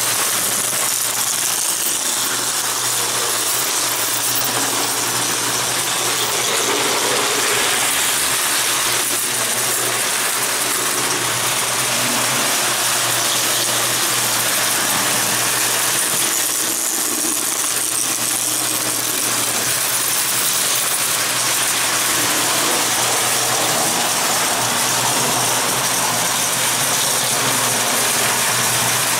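Prewar Lionel O-gauge tinplate trains, a No. 262 steam locomotive and a No. 254 electric-outline passenger set, running on three-rail tinplate track: a steady whir of the motors and gears with a continuous rattle and clatter of wheels on the rails, over a steady low hum.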